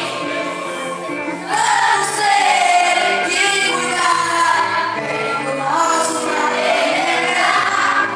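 A choir singing with instrumental accompaniment, growing fuller and louder about a second and a half in.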